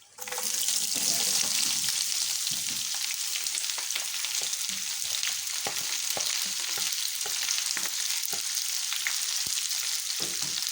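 Chopped onions dropped into hot oil and beef fat, bursting into a loud sizzle just after the start and then frying steadily, with scattered clicks and scrapes as they are stirred in the pan.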